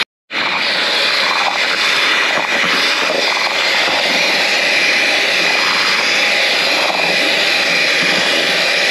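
Electric hand mixer running steadily at speed, its beaters churning a thick chicha batter, with a faint steady motor whine. The sound drops out for a moment right at the start.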